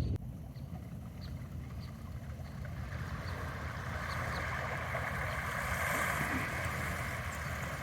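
A steady rushing outdoor noise that swells about three seconds in, with faint short high ticks over it.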